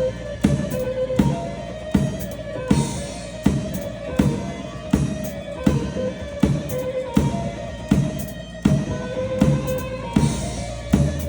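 Instrumental Turkish grani dance tune in a traditional makam: a melody line of held notes over a steady, heavy drum beat, about three strikes every two seconds.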